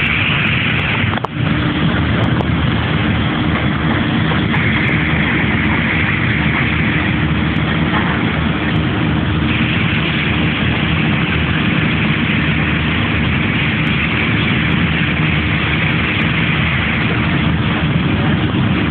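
A motor engine running steadily with a constant low hum and even noise, dipping briefly about a second in.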